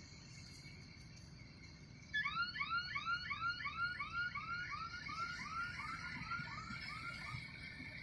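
A bird calling a long series of arched, ringing notes, about three a second, starting about two seconds in and slowly fading. Underneath is the faint low hum of a combine harvester working the paddy and a steady high insect whine.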